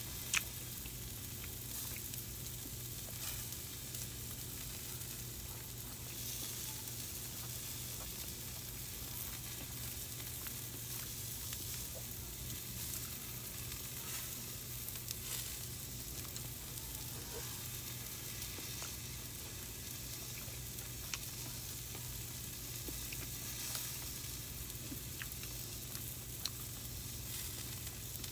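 Meat sizzling on a grill: a steady, soft crackling hiss with a few faint clicks.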